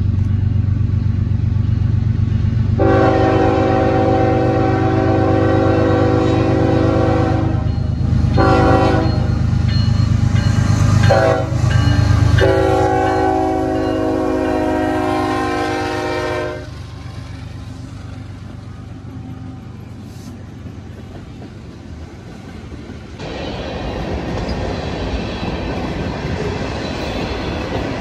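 Diesel freight locomotives approach with their engines droning low. The multi-tone air horn sounds a series of blasts for the grade crossing, the last one long. Once the locomotives have passed, the train's cars roll by with steady wheel-on-rail noise.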